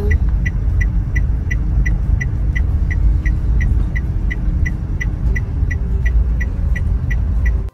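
Inside a slow-moving Daihatsu car: a steady low engine and road rumble, with the indicator ticking evenly about three times a second.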